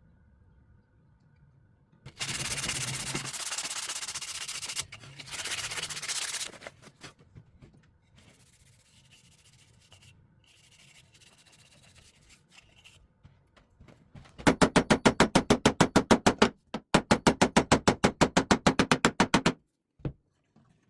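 Wood being rubbed by hand: two stretches of steady scraping early on, then, near the end, two runs of fast back-and-forth strokes at about nine a second.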